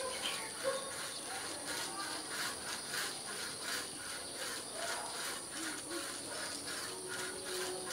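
Rhythmic outdoor insect chirping, short pulses about three times a second, over a steady high-pitched hum.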